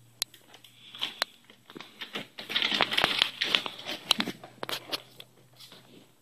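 Foil-covered flexible duct tube crinkling and crackling as a ferret scrambles through it, with scattered sharp clicks and taps. The crinkling is loudest and busiest in the middle, about two to four seconds in.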